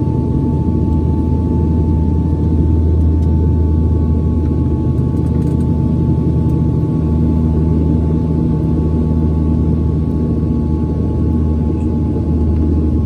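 Cabin noise of an airliner on final approach with its landing gear down: a loud, steady rumble of engines and airflow with a steady high whine over it.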